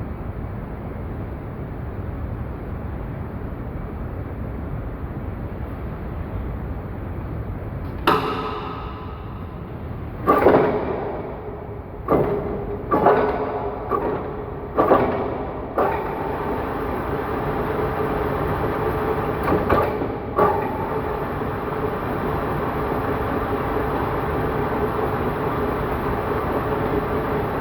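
Lathe workshop machinery running, then a series of about nine sharp metallic clanks, each ringing briefly, over about eight seconds as the job is worked on the lathe. After that the machine runs steadily with a humming tone.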